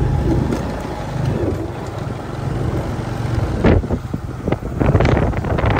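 Motorbike running along a road, its engine a steady low hum under wind buffeting the microphone. The buffeting gets gustier and louder from a little past halfway.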